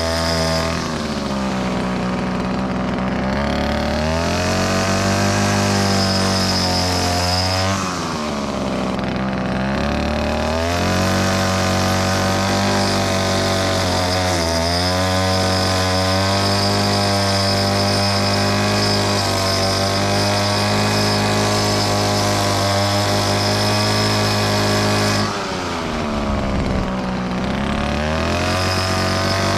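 Briggs & Stratton 190cc single-cylinder engine of a self-propelled Toro Personal Pace lawn mower running at cutting speed through grass. Its pitch dips briefly and recovers about four times as it loads up in the grass.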